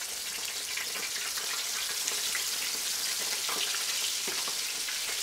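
Breaded chicken drumsticks and thighs frying in shallow hot corn oil in an electric skillet: a steady sizzle full of small crackles, with a few faint clicks.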